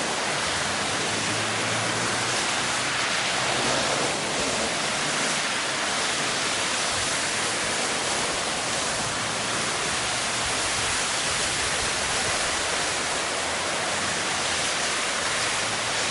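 Steady rushing hiss of heavy rain and running storm water, unchanging throughout, with a faint low hum underneath during the first few seconds.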